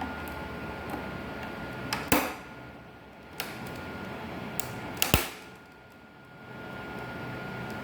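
Two sharp plastic clicks about three seconds apart, with a few lighter ticks around them, over a steady faint hum: the snap of the back-cover clips of an Asus all-in-one PC being pried loose.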